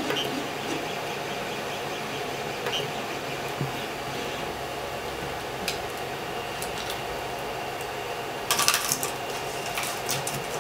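Steady fan hum from a paused Creality CR-10 3D printer, with scattered light plastic clicks as a small LED light is handled over the print. A brief, louder clatter comes about eight and a half seconds in as the light is set into the half-printed hollow ball.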